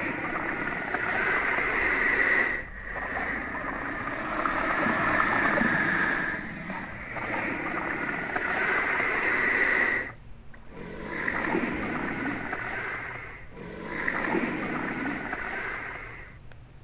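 Drawn-out raspy hissing, a made-up monitor lizard sound effect, in five long stretches of a few seconds each with short breaks between.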